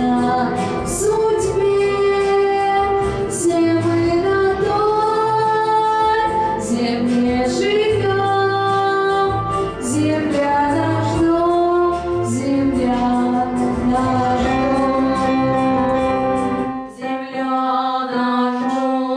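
A girl singing into a microphone over a pop-style accompaniment with a steady low beat. About seventeen seconds in the beat drops out and a held chord rings on as the song ends.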